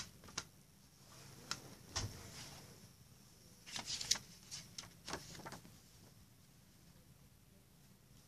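Hands handling a plastic CD jewel case and its paper booklet: scattered clicks and light rustles, with a sharp click right at the start and a cluster of them about four seconds in.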